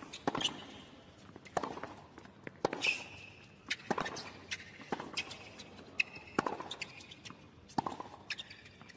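Tennis rally on a hard court: sharp racket-on-ball hits about every second and a quarter, with short high squeaks of tennis shoes on the court between them.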